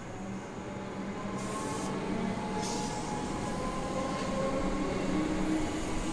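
Comeng suburban electric multiple unit moving along a station platform: a steady electric hum with faint whining tones over the rumble of wheels on rail, and two short hisses about one and a half and two and a half seconds in.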